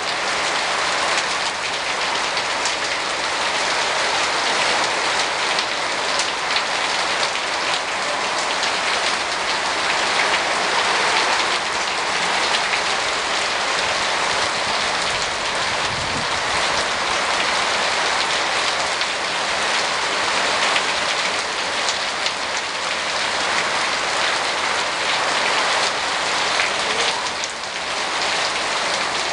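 Heavy rain falling steadily: a dense, even hiss with many single drops spattering through it.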